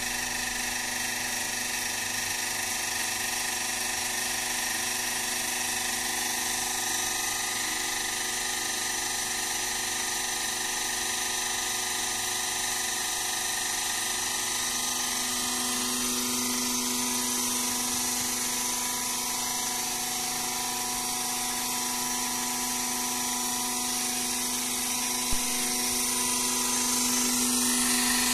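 Hydraulic power unit of a plate flipping machine running while its arms tilt upward: the electric motor and hydraulic pump make a steady hum and whine. The low hum grows louder about halfway through and again near the end, and there is one click near the end.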